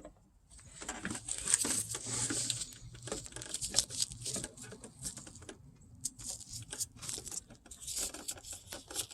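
Close rustling and scraping handling noise with many small clicks, like plastic headlight parts being turned and fitted by hand, starting about half a second in and going in uneven bursts.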